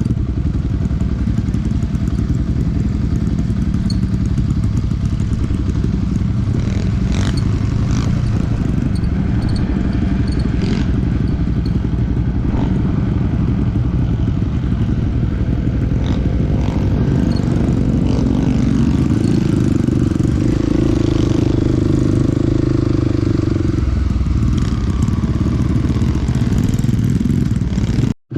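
Small dirt bike engine running while riding, with clattering and knocks over rough ground. A few seconds past the middle the engine note rises and holds higher, then drops back.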